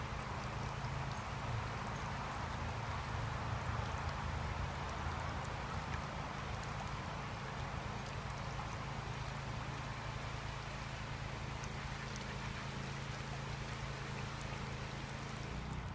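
Steady running water from a garden pond, with a low steady hum underneath.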